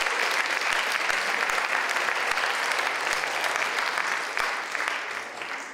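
Audience applauding, many hands clapping at once, fading away near the end.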